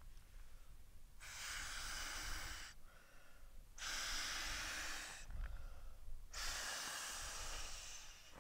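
A person breathing heavily: three long, hissing breaths about a second apart.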